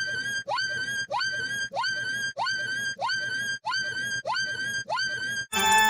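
A short high call that slides up in pitch and then holds, repeated identically about nine times at an even pace, like a looped sound effect. It cuts off abruptly near the end.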